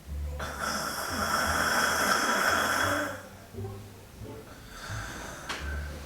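A woman's exaggerated fake snoring: one long, loud, hissing snore of about two and a half seconds, then a fainter one about five seconds in.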